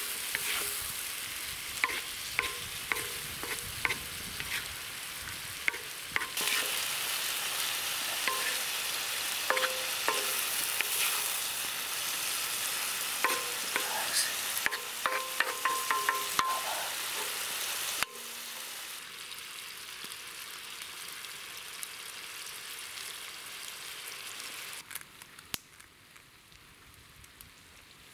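Meat frying on a hot steel harrow-disc pan over a campfire: a steady sizzle with the wooden spatula scraping and knocking against the steel as the pieces are stirred. About two-thirds of the way in, the sound drops suddenly to a quieter sizzle with hardly any stirring.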